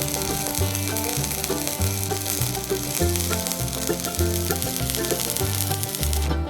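Stick (arc) welding rod burning: a steady crackling sizzle of the arc laying a pass on the broken backhoe part, which cuts off abruptly near the end as the arc is broken. Background music plays throughout.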